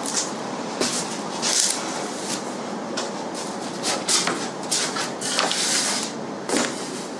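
Snap-off hobby knife cutting through Depron foam sheet: a run of short, scratchy strokes at irregular intervals over a steady background hiss.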